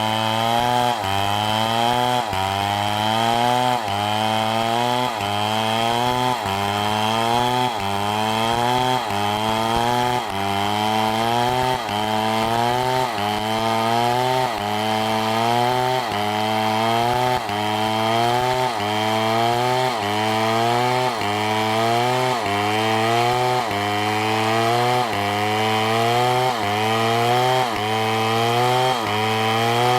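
Engine-driven saw running, its pitch sweeping up and dropping back in an even cycle about once a second.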